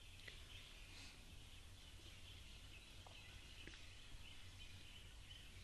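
Near silence: faint room tone, a steady low hum under a light hiss.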